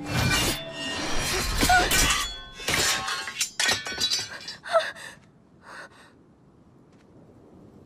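Sword fight: a fast run of metal blades clashing and striking, some hits leaving a short metallic ring. The clashes thin out and stop after about six seconds.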